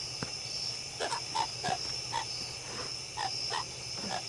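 Frogs croaking in short, unevenly spaced calls, about ten in a few seconds, over a steady high-pitched chorus of night insects.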